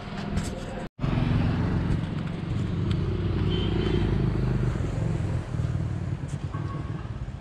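Motor vehicle engine running with a steady low hum. The sound cuts out for an instant about a second in.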